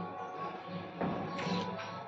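Background music with held notes over a regular low beat.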